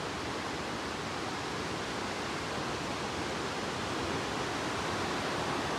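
Steady, even rush of water from a glacier-fed mountain river and the waterfalls feeding it.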